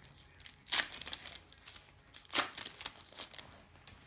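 A trading-card packet being torn open, its wrapper crinkling, with two sharp rips: one about a second in and another a second and a half later.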